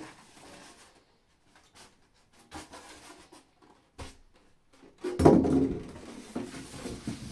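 Handling of monitor packaging: styrofoam and cardboard rubbing and knocking, with a short knock about four seconds in and a louder thump followed by scraping and rubbing about five seconds in.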